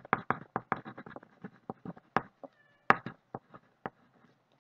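A run of light, irregular clicks and taps, roughly five a second and stopping shortly before the end, made by small objects and a pen handled on a tabletop.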